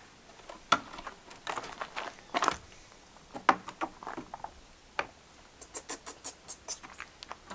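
Small parts and tools being handled at close range: scattered clicks, knocks and short scrapes, then a quick run of light clicks near the end.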